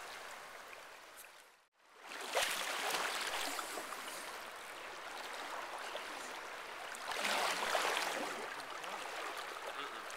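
Fast-flowing river water rushing and gurgling over a shallow riffle. The sound drops out briefly a little under two seconds in, then comes back louder, with another louder surge about seven seconds in.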